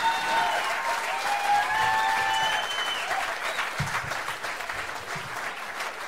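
Audience applauding, with voices calling out over it in the first half, the applause slowly dying down.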